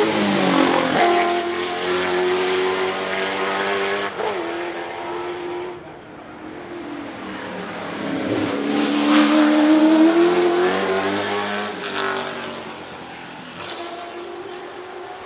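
Holden VE Commodore V8 Supercar's naturally aspirated 5.0-litre V8 revving hard as it races past, loud, its pitch dropping as it goes by, the note holding and then changing about four seconds in before fading. Around eight seconds in the engine note rises to a second loud pass, then fades away.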